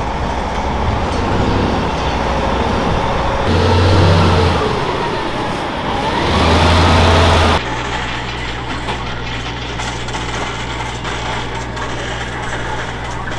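Oshkosh airport crash-rescue fire trucks driving past, their large diesel engines running, with a whine that rises and falls in pitch. About two-thirds of the way in, the sound cuts off abruptly to a steady low hum.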